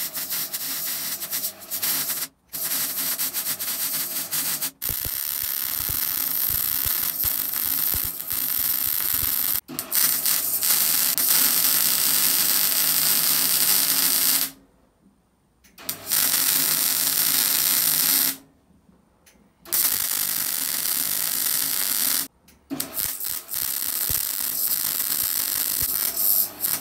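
MIG welder arc running while a bead is laid around a joint in a 3-inch steel exhaust pipe. It runs in stretches, stopping briefly several times and twice for about a second as the trigger is released.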